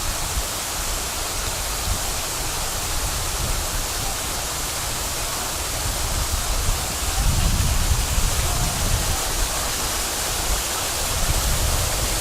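Steady rushing noise, like running water or wind, with a low rumble that grows louder for a couple of seconds midway.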